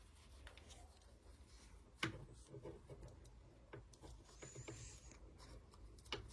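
Faint handling of a small ball-jointed doll as a skirt is put on it: soft rubbing with a few light clicks, the sharpest about two seconds in.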